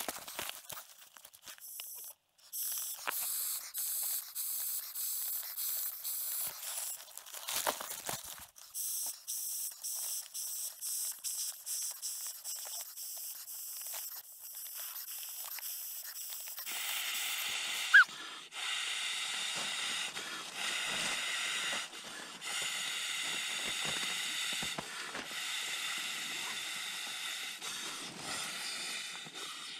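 Klymit inflatable sleeping pad being blown up by mouth: long breathy blows into the valve, each broken off by a short pause to inhale. The pad fabric rustles as it is unrolled at the start, and there is one sharp click about two-thirds of the way through.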